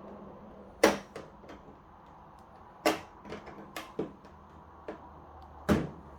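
Sharp clicks and taps of a thin knife working against an LED TV's plastic back casing while prying it away from the screen, with three louder snaps among lighter ticks.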